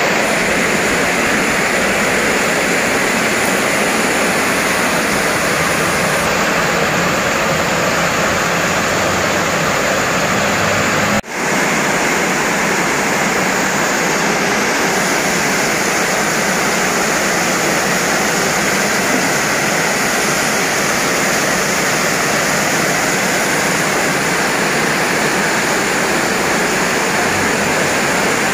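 Heavy rain falling, a steady loud hiss that drops out for an instant about eleven seconds in.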